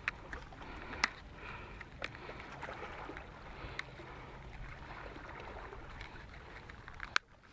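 Small waves lapping, with a few sharp clicks from fishing line and tackle being handled while a drop shot rig is set up.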